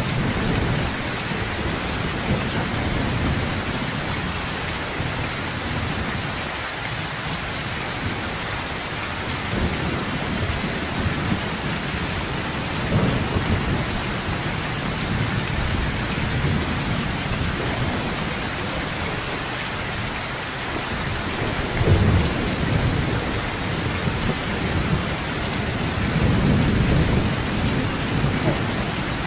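Heavy rain falling steadily on a sheet-metal roof. Low thunder rumbles swell several times, the strongest about three-quarters of the way through.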